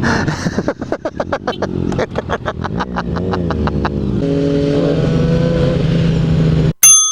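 Sport motorcycle's inline-four engine running under way, pulsing rapidly with a rise and fall in pitch, then holding a steady note from about four seconds in. Near the end a sudden loud ding cuts in, and the sound drops away.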